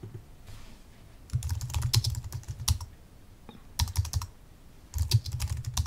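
Typing on a computer keyboard: quick runs of key clicks in three bursts with short pauses between.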